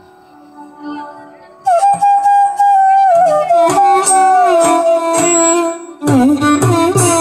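Carnatic ensemble music: after a soft held drone, a bamboo flute comes in about two seconds in with a loud, gliding ornamented melody over mridangam strokes. Near the end a lower instrument takes up the melody over a steadier, fuller drum pattern.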